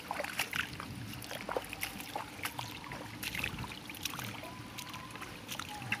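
Quiet footsteps on dry dirt and stubble beside a ditch: scattered light crunches and ticks at an uneven pace.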